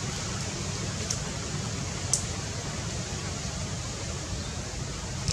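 Steady background hiss, with a few brief crisp clicks about one and two seconds in and again near the end, from a long-tailed macaque gnawing and picking at a woody stick with its teeth.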